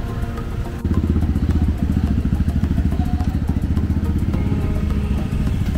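Motorcycle engine running close by, a fast, even low rumble of engine pulses that comes in suddenly about a second in.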